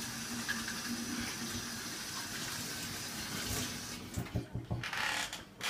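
Kitchen tap running into a stainless steel sink as hands are washed under it. The water stops about four seconds in, followed by a few light knocks and rubbing.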